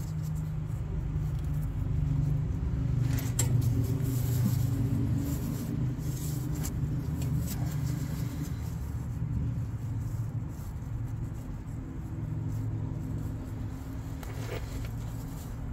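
Steady low machine hum, with a few faint light clicks.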